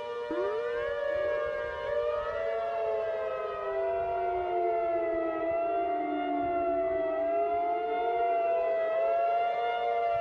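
Several civil defense warning sirens sounding together, their pitches overlapping and drifting. One winds up from a low to a high pitch about a third of a second in, and another sags in pitch around the middle before rising again.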